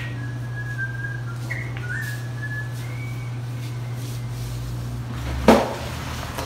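A person whistling a few short, gliding notes, then a single sharp knock about five and a half seconds in, over a steady low hum.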